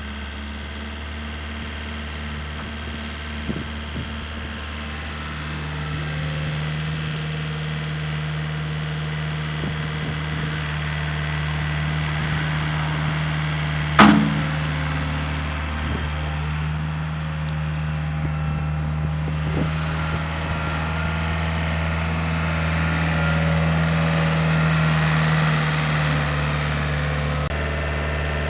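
Komatsu SK714 skid steer loader's Komatsu 4D88E four-cylinder diesel running steadily, picking up a few seconds in. A single sharp bang about halfway through.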